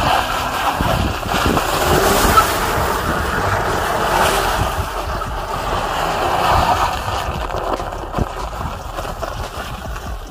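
Jeep Grand Cherokee's 3.6-litre V6 engine running as the SUV slides through donuts on snow, heard from outside with heavy wind noise on the microphone. It dies down over the last few seconds.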